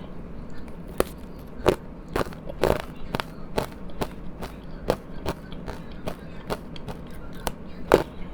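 Powdery frozen ice being bitten and chewed close to the microphone: irregular sharp crunches, one or two a second, the loudest near the end.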